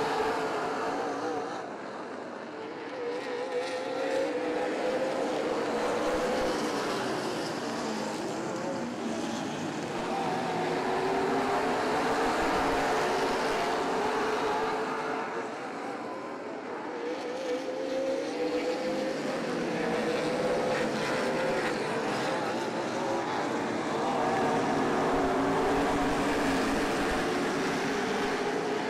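Super late model stock cars racing around a short oval, their V8 engines climbing in pitch as they accelerate off the turns. The sound swells each time the pack passes, roughly every twelve seconds.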